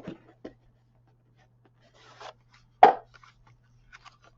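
Plastic model kit sprues being handled: a brief rustle, then one sharp knock as a part frame is set down about three seconds in, with light clicks of plastic around it. A faint steady hum underneath.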